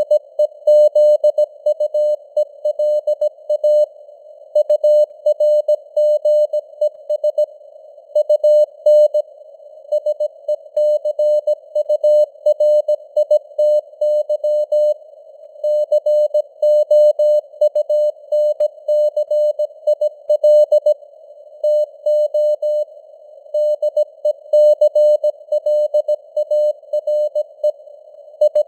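Morse code at 17 words per minute: a single-pitched beep keyed on and off in dots and dashes, with short pauses between words. It sounds over a narrow band of simulated radio static.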